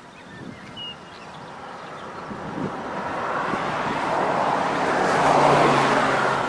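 A car passing on the road: its tyre and engine noise builds steadily for several seconds and peaks near the end.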